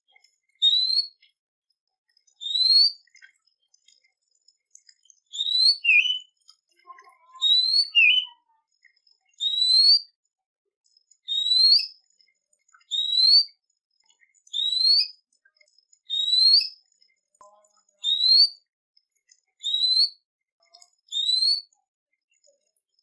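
A songbird repeating a short, clear whistled note that rises in pitch, about one every one and a half seconds, with a couple of lower notes slipped in.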